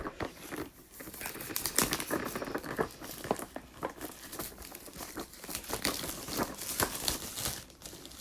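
Packaging on a board-game box being torn and crinkled open: irregular crackling and rustling with short tearing sounds.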